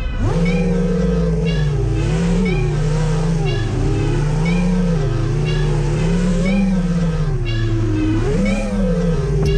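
FPV racing quadcopter's brushless motors and propellers whining, heard close up from the onboard camera. The pitch dips and then climbs sharply at the start, then swells up and down every second or two as the throttle changes through loops and turns.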